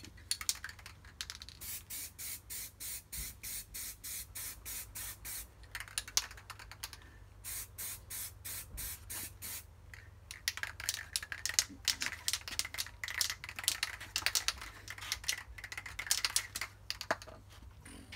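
Aerosol can of primer spraying in many short hissing bursts, about four a second, as the levers are given a light coat of primer.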